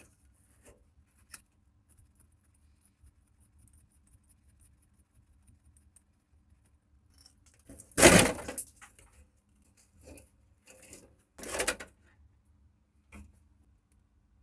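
Gloved hands and pliers working on a water dispenser's rusty fittings and rubber tubing: scattered small clicks and taps over a low steady hum. Two louder handling noises come about eight seconds in and again about three and a half seconds later.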